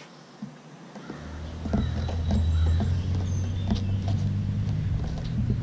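Soft clicks and rubbing of fingers working duct seal putty close to the microphone. About a second in, a steady low motor hum starts and holds, louder than the handling. Faint high chirps sound now and then.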